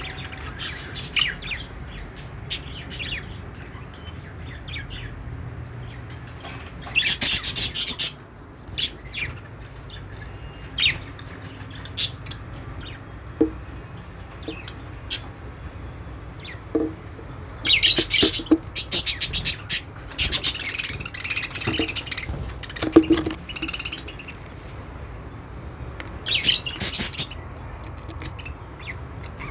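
Budgerigars chirping and chattering in scattered short bursts, with three busier spells of dense chatter, over a faint steady low hum.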